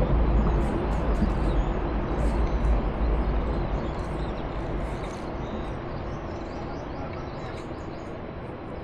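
Outdoor background noise with a low rumble that fades out about halfway through, and faint, short, high bird chirps throughout.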